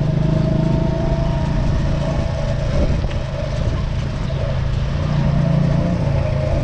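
Motorcycle engine running steadily at low road speed, heard from the rider's seat as a low, even hum.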